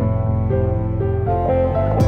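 Background music: a soft instrumental track with sustained plucked and bowed string notes changing every half second or so.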